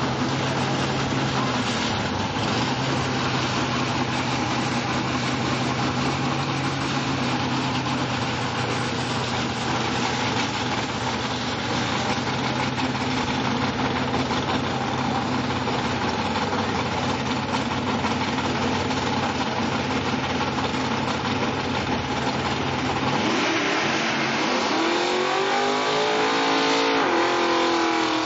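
Supercharged drag car's engine idling with a steady, loud note. About 23 seconds in, a drag car's engine starts revving hard, rising and falling repeatedly, as a burnout begins.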